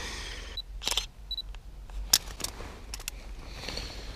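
Camera shutter clicks, several in the space of a few seconds, with two short high beeps among them.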